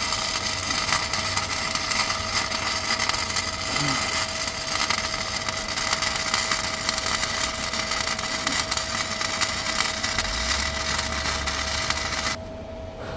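Miller Multimatic 200 flux-core arc welding: a steady, dense crackle from the arc as one continuous bead is laid, cut off suddenly near the end when the trigger is released.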